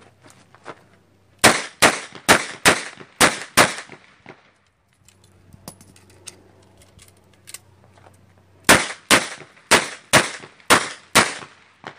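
Smith & Wesson 929 9mm revolver fired in two rapid strings of shots, about three shots a second, with about eight in the second string. A gap of about four seconds separates the strings while the shooter reloads.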